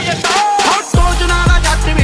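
Punjabi song playing: a sung line, then a heavy bass beat drops in about a second in.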